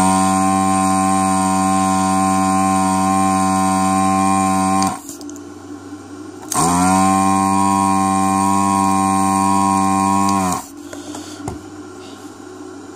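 Electric vacuum pump of an SS-331B desoldering station running twice, for about five seconds and then about four, sucking molten solder off a component's pins through the hot nozzle. Each spell is a loud, steady buzzing hum that climbs quickly in pitch as it starts and cuts off abruptly.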